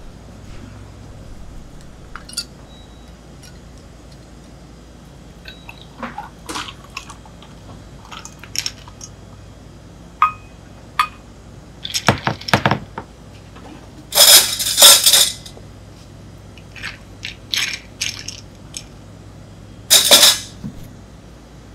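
Ice cubes clinking and knocking against a glass as an iced tea is made, with liquid poured from a stainless steel pitcher over the ice. Scattered clicks build to a few louder, longer clattering bursts, the loudest a little past the middle and another near the end.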